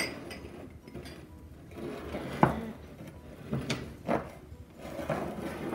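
Small glass bowls, a metal measuring cup and plastic bottles knocking and clinking against a wooden tabletop: a few sharp, separate taps, the loudest a little before halfway with a short ring after it.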